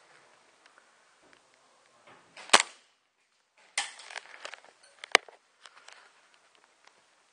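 Two sharp airsoft gun shots about two and a half seconds apart, with a softer clatter of movement noise between them.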